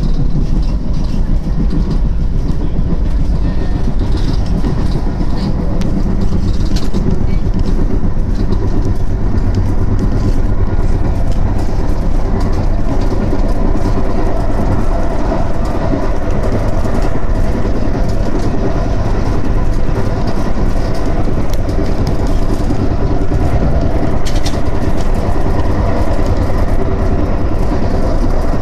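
Tyne and Wear Metro train running along the track, heard from inside the carriage: a steady rumble of wheels on rail with a few faint clicks.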